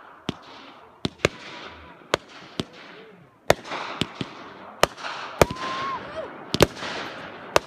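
Consumer fireworks going off: a string of sharp bangs at irregular intervals over a running crackle. A short whistling tone comes about five and a half seconds in.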